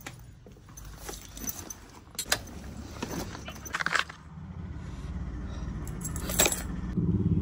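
Clinks, rattles and rubbing from handling the camera and small hard objects, like keys jangling. About halfway in, a low engine rumble, like a vehicle's, builds up and is loudest near the end.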